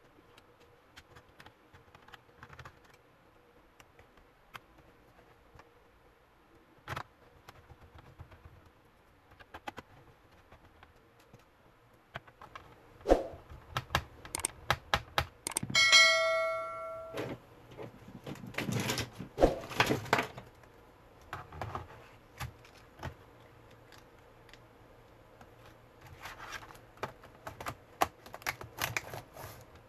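Scattered clicks, taps and rattles of plastic and metal laptop parts being handled as a Dell Inspiron keyboard is fitted into its palmrest, with a short metallic ring about halfway through. Near the end a quick run of clicks comes as the keys are pressed across the seated keyboard.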